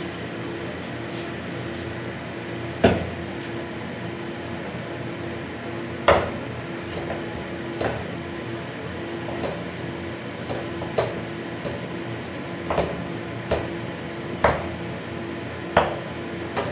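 Kitchen knife knocking on a cutting board in slow, irregular cuts, about a dozen strokes, over a steady hum.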